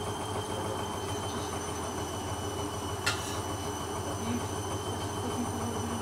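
Hoover Dynamic washing machine spinning its drum on a sudslock spin, the motor giving a steady high whine over a low hum. A single click about three seconds in.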